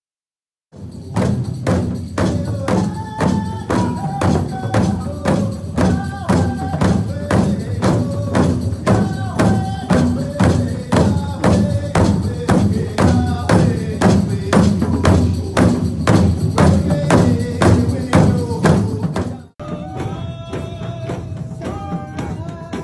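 Hand-held frame drums beaten in a steady, even beat, with a man singing over them. The sound drops out for a moment just after the start and changes abruptly to a quieter passage of drumming and singing near the end.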